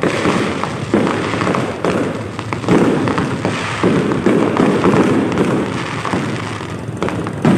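Aerial fireworks going off in quick succession: a boom about every second, each rumbling away, with continuous crackling between them.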